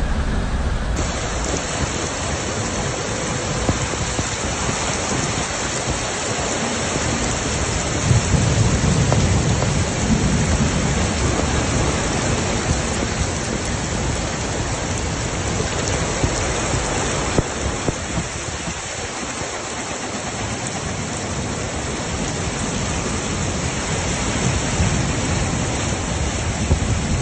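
Heavy rain pouring steadily in a thunderstorm, with a low rumble of thunder swelling about eight seconds in.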